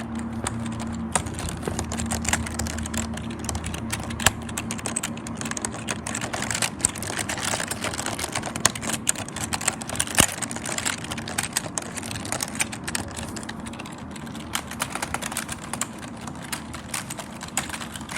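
Computer keyboard being typed on quickly, a dense, irregular run of key clicks with no pauses. A faint steady low hum runs under the first half and fades out about halfway through.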